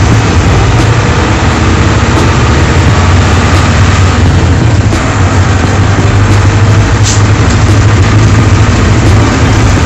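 Mercedes-Benz LO-812 bus's four-cylinder diesel engine running steadily under way, heard from inside the cabin as a deep steady hum over road noise. A short hiss comes about seven seconds in.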